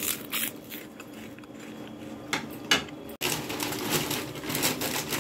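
A few separate crisp crunches of puffed rice snack sticks, then, after a sudden cut about three seconds in, a thin plastic snack packet crinkling continuously as it is handled.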